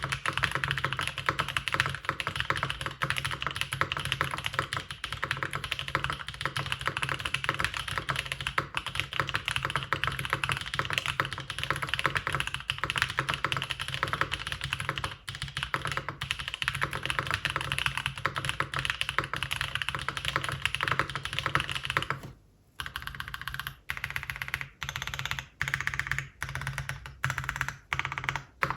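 Fast, continuous typing on a Mode Eighty custom mechanical keyboard fitted with lubed tactile Holy Boba switches (Gazzew Boba housings with Halo Clear stems), a carbon fibre plate and GMK keycaps. About three-quarters of the way through the typing stops briefly, then carries on in short runs of keystrokes broken by small pauses.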